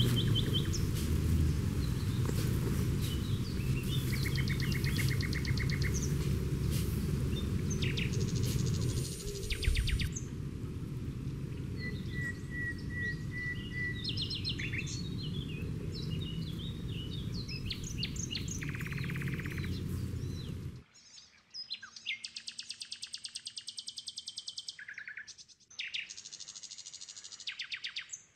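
Wild birds calling and chirping, over a steady low rumble that cuts off abruptly about two-thirds of the way through. After that the background is quieter, and high, rapidly pulsed buzzing trills stand out among the bird calls.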